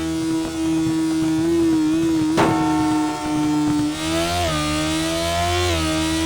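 Sport motorcycle engine running at high, fairly steady revs, its pitch dipping slightly and climbing back a few times as the throttle eases and opens. There is a single sharp click about two and a half seconds in.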